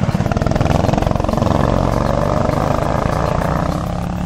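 Go-kart engines running loudly close by as the karts pull away, the engine note rising and falling, growing a little fainter near the end.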